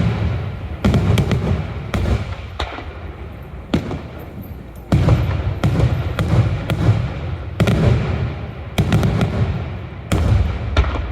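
Daylight fireworks shells exploding one after another, a dozen or so sharp bangs about half a second to a second apart, each trailed by a low rolling rumble.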